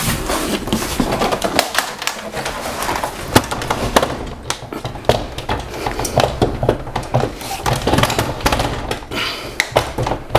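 Irregular knocks, clicks and scraping as a flat-screen TV's mounting arms are hooked onto a metal wall-mount plate and shifted into place.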